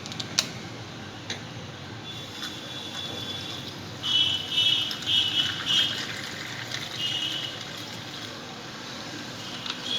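Soda water poured into a glass packed with crushed ice, the pour and fizz loudest from about four to seven and a half seconds in.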